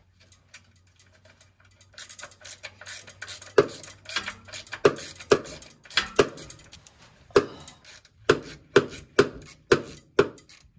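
Socket-wrench ratchet clicking in short back-and-forth strokes on a transmission-to-engine bellhousing bolt. It starts with light clicks, then settles into sharp clicks about twice a second.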